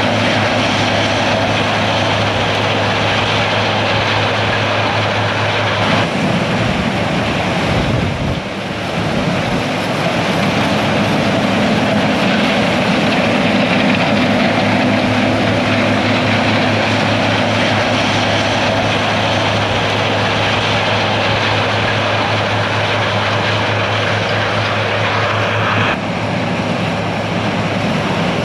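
Heavy diesel harvest machinery running steadily under load: a constant low engine drone with a dense rushing noise over it. The sound changes abruptly about six seconds in and again near the end.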